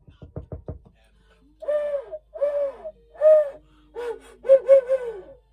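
Sound-effect run: a quick string of about eight clicks, then about six short pitched calls, each rising and then falling, the last ones coming close together, over a low falling glide.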